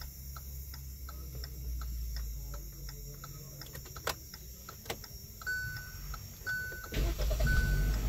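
A car's dashboard ticking steadily, about three clicks a second, then a warning chime beeping over and over, and near the end the Hyundai HB20's engine starting with a low rumble as the key is turned with the clutch pressed down.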